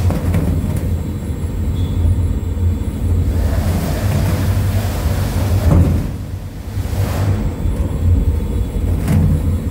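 Small sample fulling milling machine with Azobè wood rollers running, with a steady low drive rumble. Every couple of seconds there is a rush of swishing noise as the wet cloth rope is drawn through and flops around.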